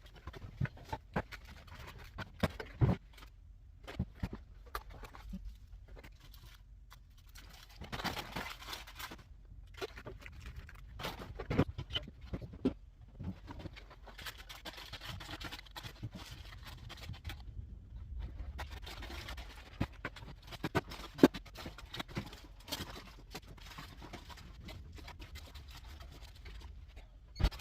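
Restocking a vending machine by hand: packaged items handled and set into the machine, with scattered irregular clicks and knocks and a few short stretches of rustling.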